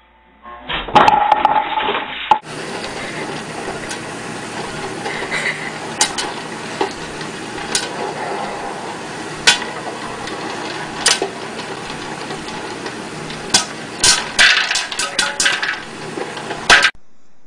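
Electric popcorn popper running with a steady noise, kernels popping against its clear plastic dome as sharp pops: a few spaced a second or two apart, then a quick run of them near the end as the popping picks up. A short burst of loud knocks comes in the first two seconds, before the popper is heard.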